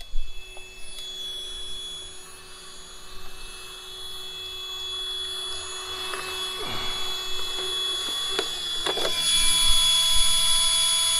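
A steady whine made of several fixed tones with a high hiss, growing louder about nine seconds in. A sharp knock right at the start and a few short knocks and rustles of handling come just before the whine rises.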